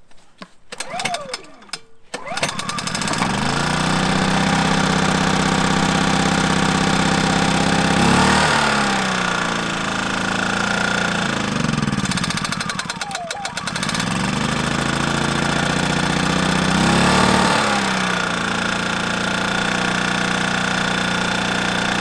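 Generac 2000ix inverter generator's small engine being started cold on choke: a couple of seconds of clattering, then it catches and runs steadily, its speed sagging and recovering a few times as it settles.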